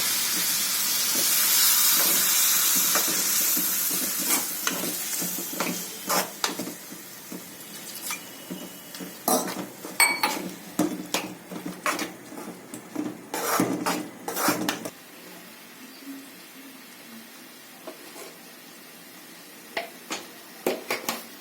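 Food frying in hot oil in a pan, sizzling loudly at first and then dying down, while a spatula stirs and scrapes against the pan with many short clacks. The stirring stops about two-thirds of the way through, leaving a soft sizzle and a couple of last taps near the end.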